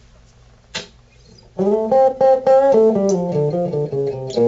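Electric guitar played through a small Crate G-10 practice amp. It starts quiet with a single click, then from about a second and a half in a run of single picked notes rings out. The amp is working on its newly replaced plug.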